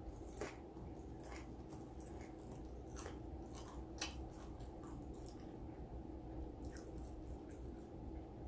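A person chewing food close to the microphone, with irregular wet mouth clicks and smacks, roughly one or two a second.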